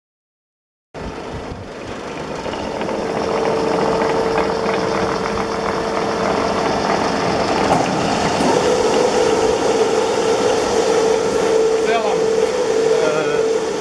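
Oil-wax rubbing and polishing machine running: a steady mechanical din with a motor hum whose pitch steps up slightly and grows louder about eight and a half seconds in.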